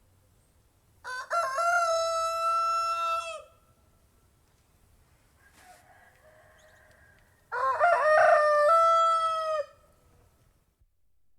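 Domestic rooster crowing twice, a few seconds apart. Each crow lasts about two and a half seconds and ends on a long held note.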